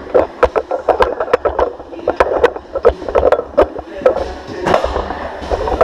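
Sorinex Root Hog push sled driven along the gym floor, scraping and rumbling, with sharp uneven knocks and rattles about three a second, heard up close through a camera mounted on the sled.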